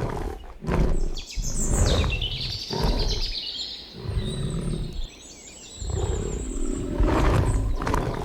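A lion roaring: a series of deep roars and grunts about one to two seconds apart, with birds chirping in the background during the first few seconds.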